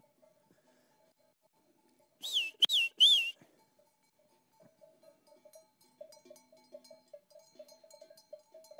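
Three short, loud warbling whistle notes, each rising and falling in pitch, about two seconds in: a handler's herding whistle to a Border Collie. Sheep bells clink faintly through the rest.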